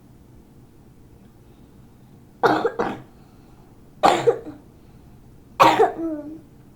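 A person with a cold coughing: a double cough, then two single coughs about a second and a half apart, the last trailing off into a short voiced sound.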